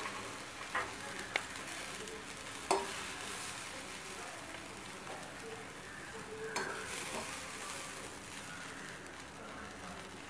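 Steel spoon scooping and scraping cooked sprouts in a steel kadai and transferring them to a bowl, with a few sharp clinks of the spoon against the pan, the loudest about three seconds in, over a steady faint hiss.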